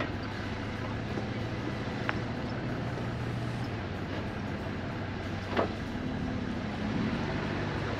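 Jeep Wrangler Rubicon's engine running steadily at low speed on a dirt trail, with two sharp knocks a few seconds apart, the second the loudest.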